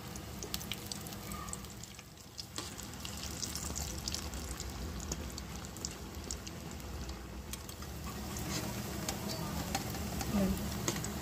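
Battered green chilli fritters (mirapakaya bajji) deep-frying in hot oil: a steady sizzle with scattered crackles, dipping briefly about two seconds in.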